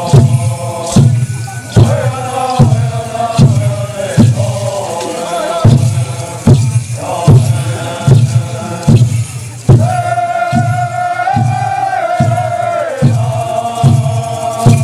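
Men's voices chanting a dance song together over a steady drumbeat, a little more than one beat a second, with one long held note about ten seconds in.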